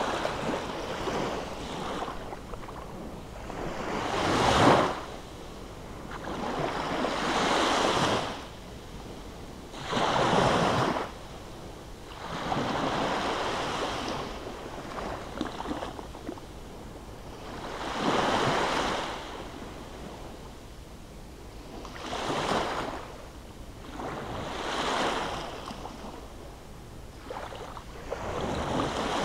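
Small sea waves breaking and washing up a sandy shore, swelling and fading about every three to four seconds.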